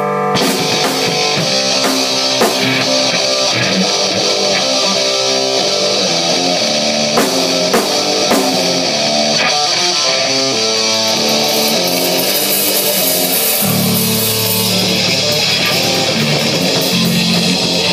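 Rock band playing a heavy metal riff on electric guitar with a drum kit. Heavier, lower guitar notes come in about three-quarters of the way through.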